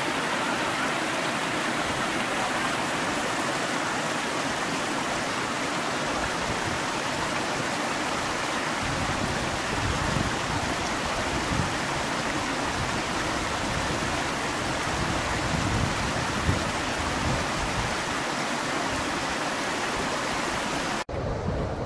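Steady rush of a mountain stream running over rocks. From about nine seconds in, uneven low rumbling of wind on the microphone joins it. The sound breaks off abruptly near the end.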